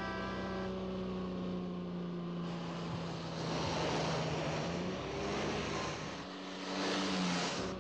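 Car engine running at speed with a steady note, over rushing road and wind noise. The note breaks and shifts slightly about five seconds in and again near the end, while the rushing swells.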